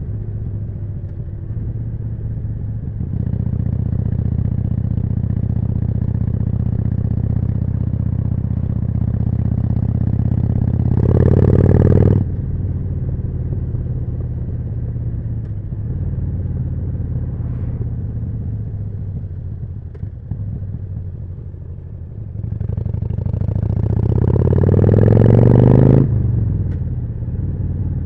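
Harley-Davidson Forty-Eight's air-cooled V-twin running through a Jekill & Hyde exhaust while riding, at a steady cruise. About eleven seconds in there is a short surge of throttle that cuts off sharply. Near the end the bike accelerates with the revs rising for a few seconds, drops off suddenly as if at a gear change, then builds again.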